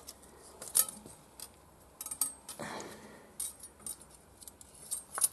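Light, scattered metallic clicks and clinks of a steel feeler gauge set as its blades are handled and one is slid into the valve clearance gap at a rocker arm.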